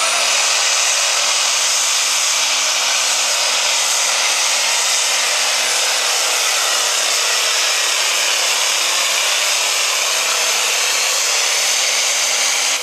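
Diesel engine of a John Deere light pro stock pulling tractor running flat out under full load as it drags the sled, a loud, steady, unbroken din.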